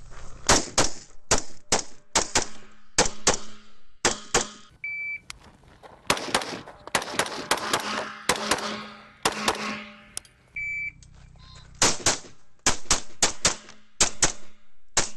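Rapid strings of semi-automatic AR-15 rifle shots fired on the move, each string set off by a short electronic shot-timer beep: one just before the start, another about five seconds in and a third near eleven seconds.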